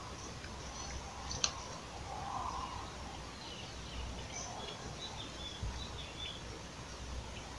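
Outdoor ambience with small birds chirping in short high notes, over a steady low rumble. A single sharp click about a second and a half in, and a dull thump near the end.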